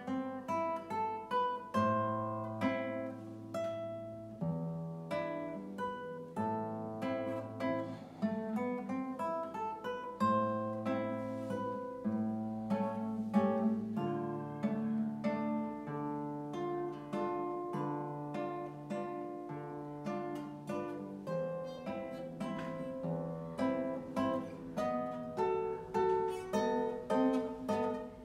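Solo classical guitar played fingerstyle: a steady run of plucked melody notes over bass notes held for a second or two at a time.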